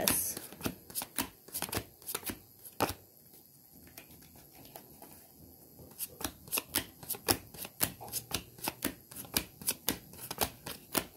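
A deck of tarot cards being shuffled by hand: a run of quick, soft card slaps and ticks, which pauses for a few seconds in the middle and then picks up again.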